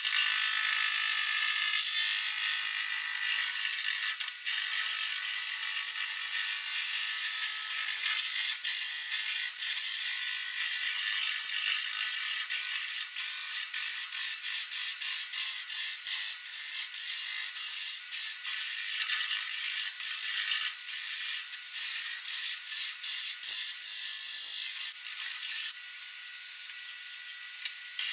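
Hand-held turning tool cutting a wooden bowl blank spinning on a wood lathe: a steady hiss of shavings coming off, broken by many short ticks and breaks in the cut. Near the end the cut stops for about two seconds, leaving only a quieter steady tone from the running lathe.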